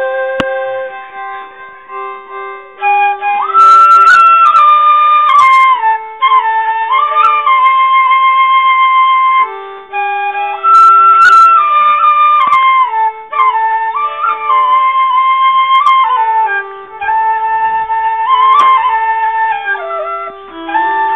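Background music: a solo flute playing a slow melody with slides and ornaments between held notes, over a lower accompanying line.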